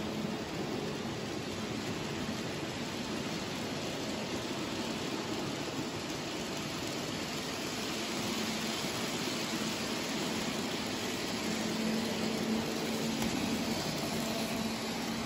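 N-scale model freight train rolling along the track: a steady rushing noise from the cars' wheels, with a faint low hum that comes and goes.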